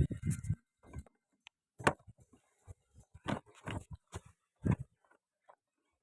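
Irregular knocks, clicks and rustles of hands handling packaging and a product while unboxing, a dozen or so separate short sounds with no steady motor sound.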